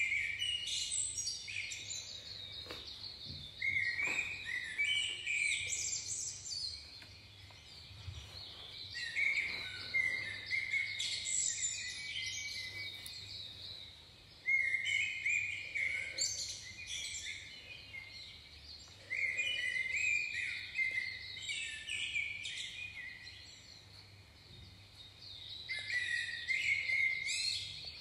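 Birds singing in warbling phrases of a few seconds each, repeated throughout, with a few faint knocks about three to four seconds in.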